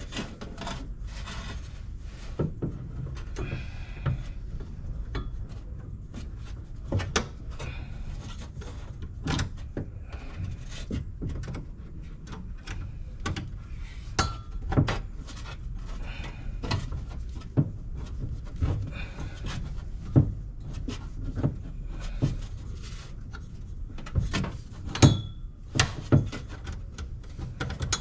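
Irregular clicks, knocks and rubbing from hand work with tools and metal parts, over a low steady rumble.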